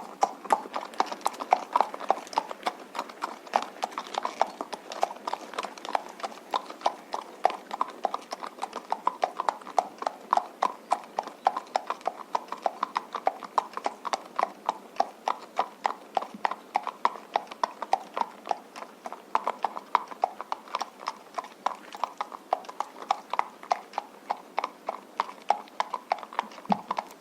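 Horse walking on a road: a steady, even clip-clop of hooves on the hard surface.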